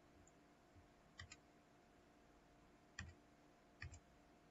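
A few faint computer mouse clicks: two in quick succession about a second in, then single clicks about three and four seconds in.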